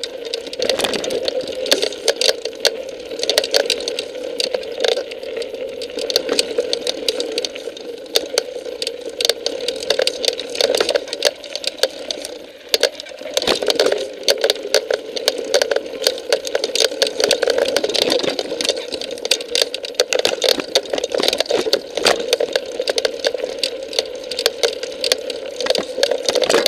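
Mountain bike riding over rocky singletrack, heard through a bike-mounted action camera: continuous dense rattling and clicking from the trail chatter, with a steady rushing noise underneath.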